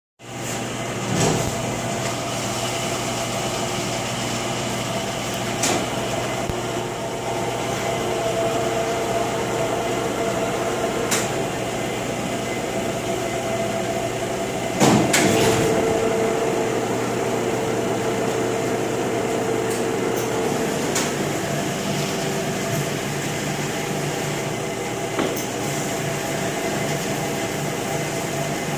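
A large LeBlond Regal engine lathe running: a steady machine hum with a whine that comes and goes, and a few sharp clicks or knocks, the loudest about halfway through.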